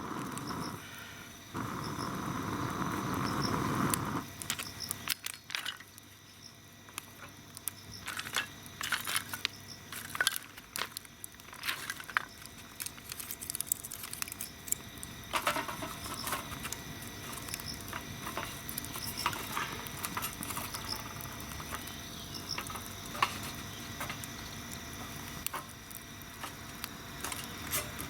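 Small cedar-wood fire crackling, with scattered sharp pops and snaps. For the first few seconds a rushing noise sits over it.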